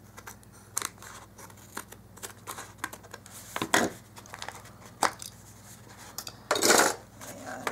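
Scissors trimming the edges of a glued paper package: several separate sharp snips, then a louder rasping cut or paper rustle about six and a half seconds in.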